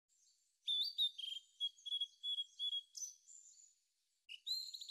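A songbird singing, a clean recording with nothing else in it: a run of about eight quick, high chirping notes, then after a short pause a brief second phrase near the end.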